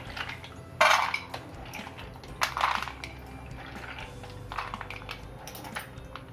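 Hands scooping wet penne pasta out of water in a steel plate and dropping it onto a second steel plate: splashing, squelching and light clatter against the metal in four short bursts, the loudest about a second in.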